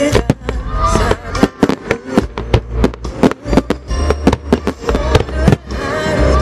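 Fireworks shells bursting in quick succession, many sharp bangs and crackles over a few seconds, thinning out near the end, over loud music playing with the show.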